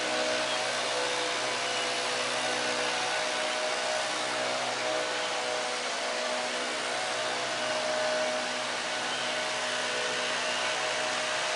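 Steady whooshing noise with a low, even hum in it, typical of a fan or blower running continuously.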